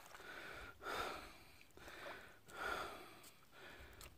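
A man's heavy breathing, soft in-and-out breaths coming about once a second.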